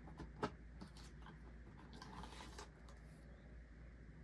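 Hands handling a black packaging tray as it is lifted out of a carry case: a few light clicks and taps near the start, the loudest about half a second in, then a brief rustle about two seconds in.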